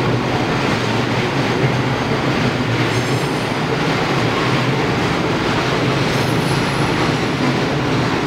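Freight train of container flatcars rolling past, a steady rumble of steel wheels on rail, with faint high wheel squeals about three seconds in and again around six seconds.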